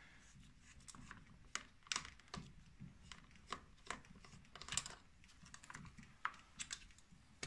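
Faint, scattered clicks and taps of a snowmobile track-tension gauge and its small block being handled and taken off the track. The loudest clicks come about two, three and a half, five and six seconds in.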